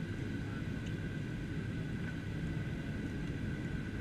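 Steady cabin noise inside a Boeing 737-800 in flight, heard at a window seat over the wing: a low rumble from its CFM56 engines and the airflow, with a steady high whine over it.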